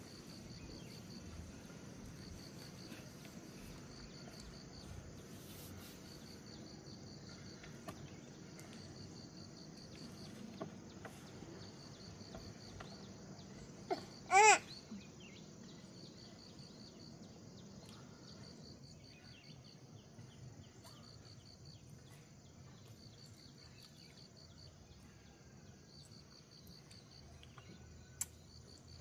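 Insects chirping in repeated high, pulsed trains of about a second each, over a low steady background. About halfway through, a single short, loud, high-pitched cry.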